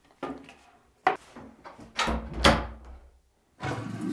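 A few clunks and knocks, the loudest a deep thud about two and a half seconds in. Then, near the end, a toilet starts flushing with a steady rush of water.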